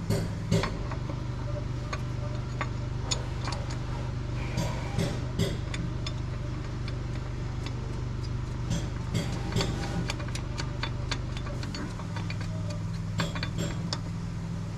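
Scattered metal clicks and clinks of hand tools and bolts being worked on car parts, over a steady low engine drone that shifts slightly about twelve seconds in.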